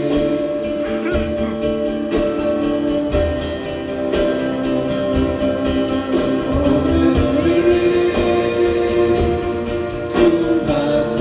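Live acoustic band music: singing over long held chords and a steady drum beat.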